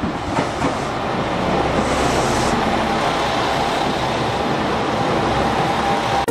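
JR Shikoku 2000 series diesel train arriving at a station platform and rolling slowly past: steady engine and wheel noise, with a faint high whine joining in the second half.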